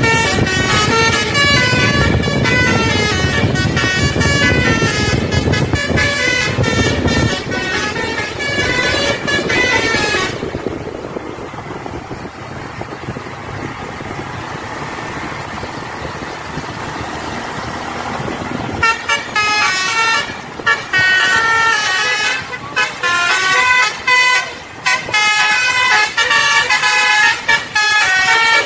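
Tour bus's telolet (basuri) horn playing quick multi-tone melodies, notes stepping up and down in rapid succession. It stops about ten seconds in, leaving bus engine and road noise, and starts playing again about nine seconds later.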